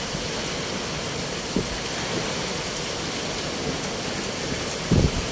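Steady heavy rain falling on a surface. A couple of short low thumps break through it, a small one about a second and a half in and a louder one near the end.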